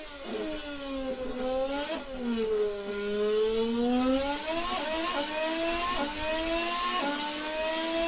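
Mercedes-Benz 2014 Formula 1 1.6-litre turbocharged V6 engine at racing speed: the revs sag for the first couple of seconds, with a short blip near 2 s, then climb hard. From about halfway on the pitch rises and drops sharply four times, quick upshifts under full acceleration.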